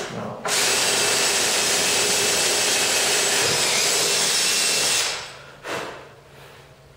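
Makita cordless drill boring a hole through a half-inch MDF sled base. It runs steadily for about four and a half seconds and winds down about five seconds in, with a short burst of sound about a second later.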